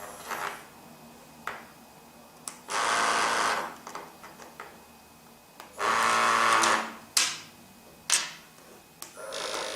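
APE6600 wristwatch pager receivers buzzing as calls arrive from the APE350 call pager. There are two bursts about a second long and a third starting near the end, with several short sharp clicks between them.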